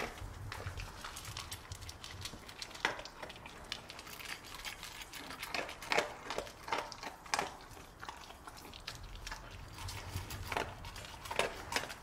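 Labrador retriever eating dry kibble from a slow-feeder bowl: irregular crunches and clicks of kibble, loudest around halfway through.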